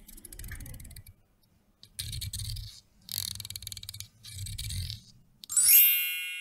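A hair comb drawn four times, each stroke a quick rattle of clicks from its teeth with a scraping hiss. Near the end a bell-like chime rings out and fades.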